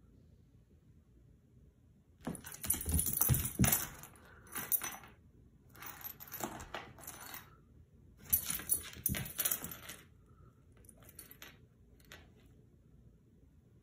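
Dog's metal collar tag jingling and clinking against a hardwood floor as the dog noses along the boards, in several short bursts with a few soft thumps.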